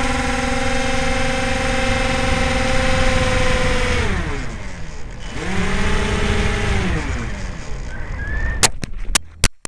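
Electric motor and propeller of a Flying Fox RC plane, heard from on board the plane, whining steadily, then throttled down about four seconds in, opened up briefly at a lower pitch, and cut. Several sharp knocks follow near the end as the plane comes down on the ground.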